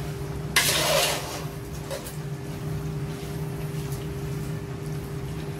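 Bare hand mixing seasoned, boiled pork intestines in a large aluminium pot, with one brief rustle of the meat about half a second in. A steady low machine hum runs underneath.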